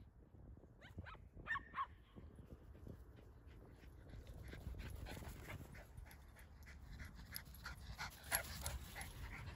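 Small dogs at play: two short, high yips about a second and a half in, then faint panting and rustling as dogs run across grass.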